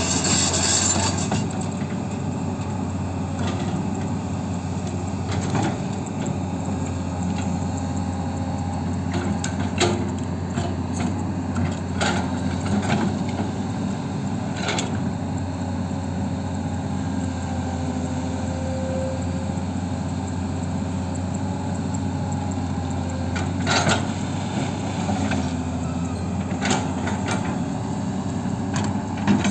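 Excavator's diesel engine running steadily, with scattered sharp knocks at irregular moments.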